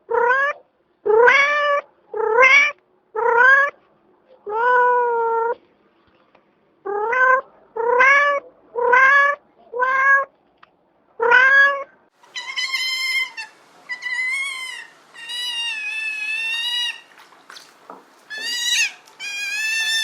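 A cat meowing over and over: about ten short meows, each rising in pitch, with a pause of about a second midway. From about twelve seconds in, higher-pitched, longer, wavering calls follow over a faint hiss.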